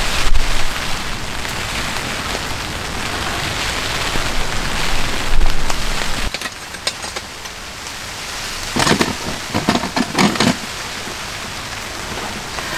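Rain pattering on a Kelty Rhombus 4 tent while strong wind gusts buffet it, the wind's low rumble heaviest in the first half. A few short knocks and rustles come near the end.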